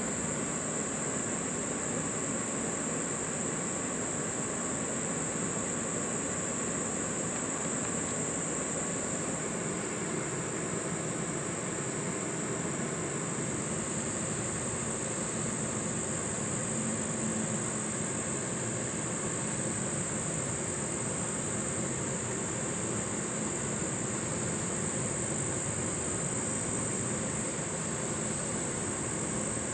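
Steady high-pitched insect chorus, a constant unbroken trill, over a low even background rumble.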